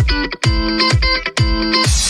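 Music: strummed electric guitar chords over a steady deep drum beat, about two hits a second. It cuts off near the end, leaving a steady hiss.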